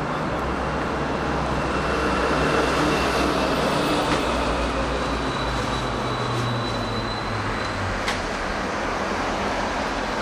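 Steady road traffic noise, a continuous low rumble of passing vehicles, with a couple of brief sharp clicks about 4 and 8 seconds in.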